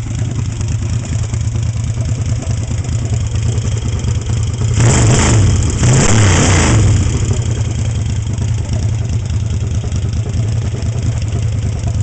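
Rephased Yamaha XS1 parallel-twin with a 750 big bore kit, running on short open cutoff pipes. It idles steadily and is revved twice in quick succession about five seconds in, each rev rising and falling over about a second. This is a freshly built engine on its first runs, just after the ignition was timed.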